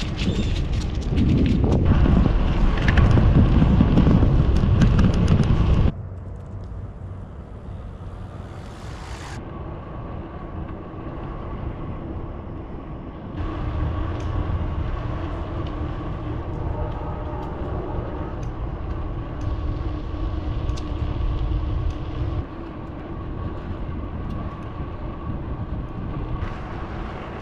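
Wind rumbling on the microphone and road noise during a bicycle ride, louder for the first few seconds. The sound changes abruptly several times where the clips are cut together.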